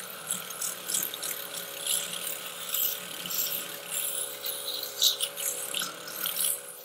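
Sandpaper scratching irregularly against a wooden bottle-stopper blank spinning on a Penpal benchtop pen lathe. The lathe's motor whines steadily underneath.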